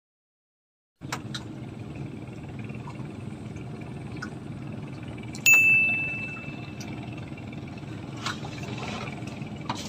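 Steady low background rumble with scattered light clicks, and about halfway one clear metallic ding that rings out for over a second.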